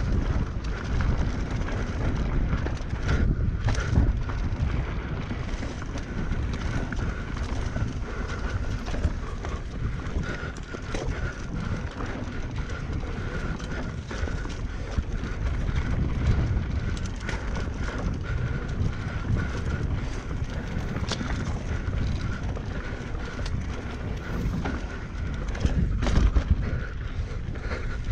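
Mountain bike ridden fast down a rough enduro trail: wind buffeting the microphone over tyre noise on dirt, with frequent clatter and knocks from the bike over rough ground and a faint steady high tone.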